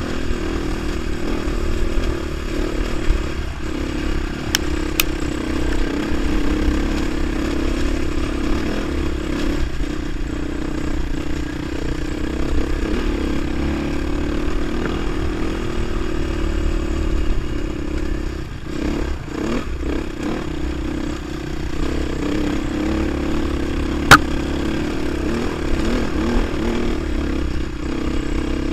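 Beta 450 RR single-cylinder four-stroke dual-sport motorcycle running at a steady cruise on a gravel road, heard from on the bike, with wind rumble on the microphone and gravel clatter under the tyres. The engine eases off briefly about two-thirds of the way through, and a sharp click sounds near the end.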